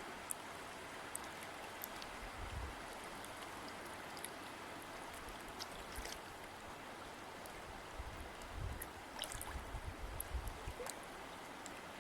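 River water flowing: a steady rush with many small splashes and drips scattered through it, and a few low rumbling bumps, mostly in the second half.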